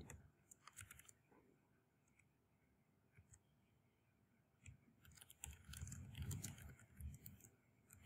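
Near silence with faint computer keyboard clicks from typing: a few in the first second, then a denser run of keystrokes over the last three seconds or so.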